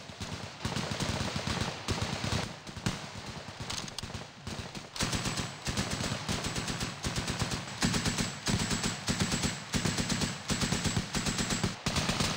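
Gunfire from assault rifles and a belt-fed machine gun in a live-fire squad drill: scattered shots at first, then from about five seconds in dense, rapid strings of automatic fire.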